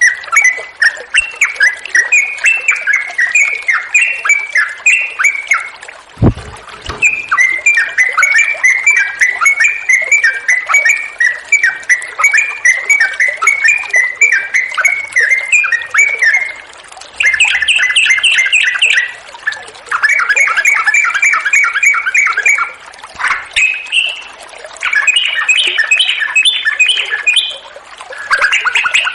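Yellow-vented bulbul (trucukan) singing without pause: quick runs of bubbly chirps, then from about 17 seconds in long, very rapid trills in bursts of two to three seconds. A single low thump about six seconds in.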